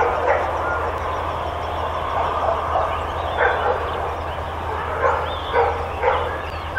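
Many kennelled dogs barking and yelping at once in a constant, overlapping din, with single louder barks standing out every second or so.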